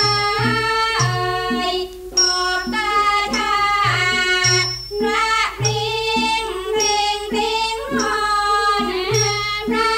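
Thai classical piphat ensemble playing: a melody of gliding pitches over repeated low drum strokes.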